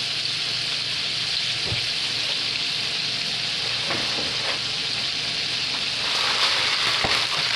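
Floured chicken strips frying in a skillet of hot oil: a steady sizzle with a few pops, getting louder about six seconds in.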